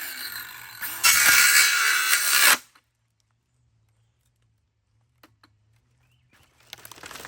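Ryobi One+ cordless circular saw running and cutting into a laptop's casing. It gets louder about a second in, then cuts off suddenly. A few faint rattles follow near the end.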